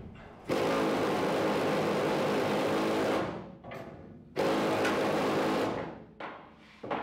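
A 12-volt Harbor Freight 3/8-inch cordless impact, powered from the truck's battery, winding a ratchet strap onto a truck-bed strap winder. It runs loud in two bursts, about two and a half seconds then about a second and a half, each dying away as the trigger is let go, with two short blips near the end.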